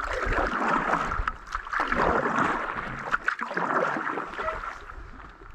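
Canoe paddle strokes in lake water: splashing and swishing that swells and eases about every second and a half.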